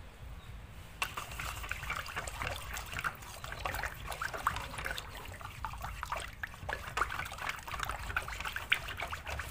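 Wooden chopsticks stirring a runny yeast batter in a stainless steel bowl: wet sloshing and slapping with quick irregular clicks, starting about a second in.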